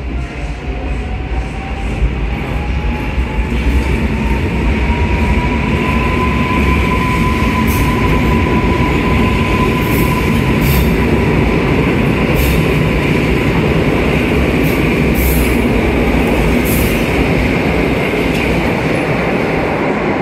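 Koleje Mazowieckie EN57AKM electric multiple unit pulling out of an echoing underground platform. Its motor whine rises in pitch over the first six seconds as it picks up speed, then holds steady over a loud, continuous rumble of wheels on rail. Short sharp squeaks and clicks come as the cars pass.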